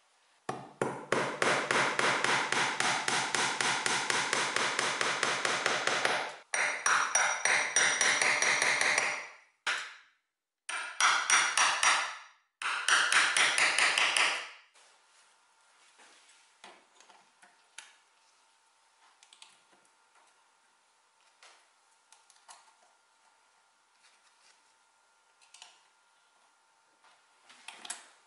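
Small hammer tapping a punch in rapid, even strikes, several a second, driving the pins of a metal keyhole escutcheon into a wooden panel. The tapping comes in four runs over roughly the first fourteen seconds, then gives way to a few faint small clicks of handling.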